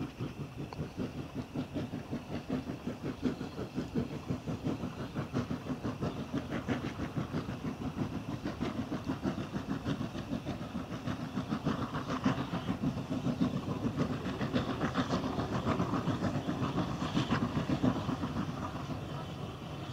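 Steam locomotive No. 85 'Merlin', a V class three-cylinder compound 4-4-0, running light engine and approaching, its exhaust beating rhythmically at about two to three beats a second and growing steadily louder. Near the end the beat gives way to a smoother sound.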